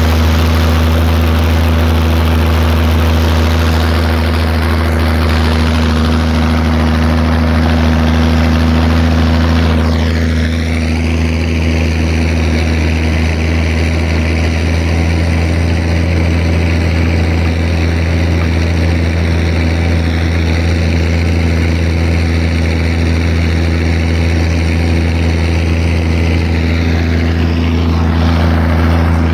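Zetor tractor's diesel engine running steadily at working revs while pulling a mounted plough through a field, heard from the driver's seat. The tone of the upper sound shifts about ten seconds in, but the engine note holds steady.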